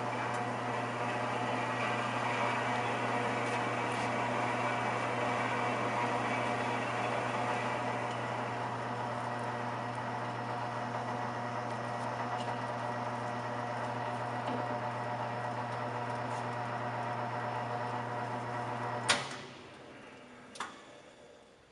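Powermatic 45 wood lathe running: a steady electric-motor hum with the whir of its drive. About 19 seconds in there is a sharp click and the hum cuts off as the lathe is switched off and winds down, with a second, fainter click a moment later.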